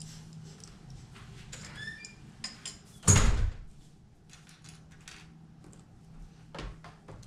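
Small plastic Lego bricks clicking and rattling as they are picked from a pile and fitted together on a wooden table, with one loud thump about three seconds in.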